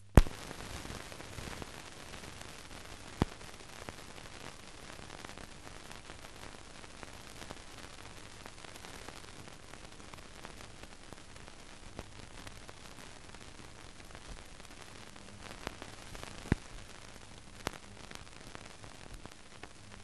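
Steady hiss of an old film soundtrack, with a loud pop as it begins and a few more sharp clicks and pops scattered through it.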